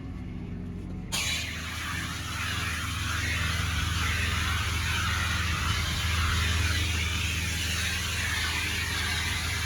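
Pressure washer running with a steady low hum; about a second in the lance is triggered and a loud, steady hiss of high-pressure water spray starts and keeps going.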